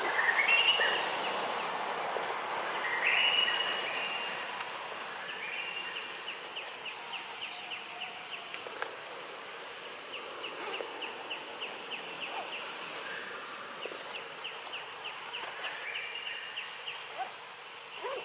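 Tropical forest ambience: a steady, high insect drone, with a quick, regular ticking trill of several ticks a second. Short rising whistled calls come through over it, loudest about half a second and three seconds in.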